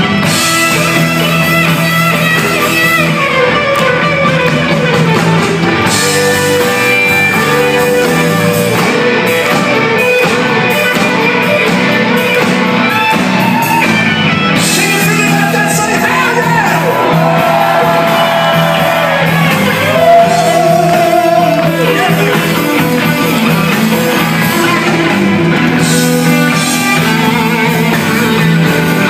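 Southern rock band playing live on electric guitars, bass and drums, loud and steady, heard from the audience in a large hall. A lead line slides and bends in pitch about two-thirds of the way through.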